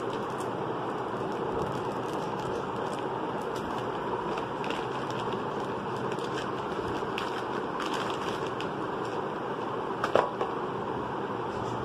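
Plastic courier mailer bag crinkling and crackling as it is handled, over a steady background hiss, with one louder crackle about ten seconds in.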